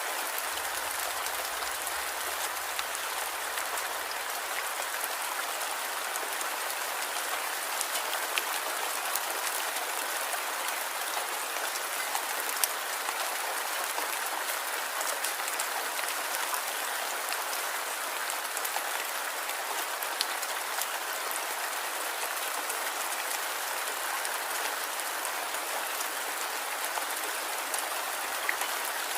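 Light rain falling steadily, an even hiss of drops with scattered individual drop ticks.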